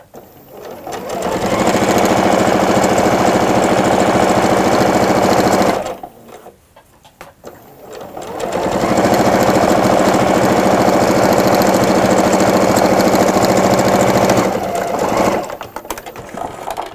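Electric household sewing machine stitching a seam. It runs steadily for about five seconds, stops for a couple of seconds, then runs again for about six seconds before slowing unevenly and stopping near the end.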